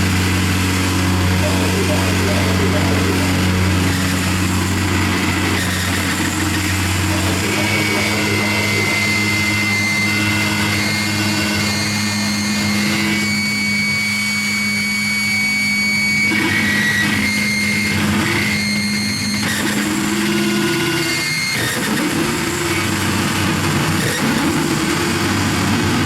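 Live harsh noise music: a dense wall of electronic noise over a low steady drone that steps up in pitch about seven seconds in. Thin high whining tones come and go through the middle.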